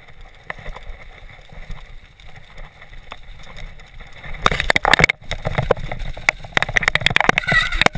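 Specialized Big Hit downhill mountain bike rolling down a rough, muddy trail: a low tyre rumble, then from about halfway a rapid, louder clatter of knocks and rattles as the bike hammers over rough ground.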